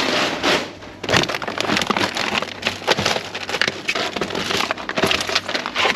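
Plastic food packaging crinkling and clacking as clear plastic trays of meat and film-wrapped packs are rummaged through by hand in a plastic wheelie bin, with many quick clicks and crackles.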